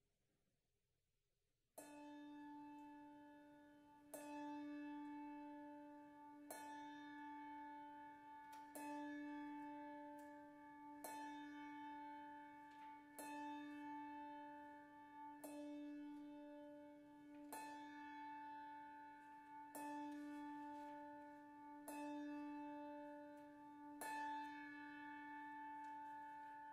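A single bell tolling slowly at one pitch, struck about every two seconds with each ring sustaining into the next, starting about two seconds in.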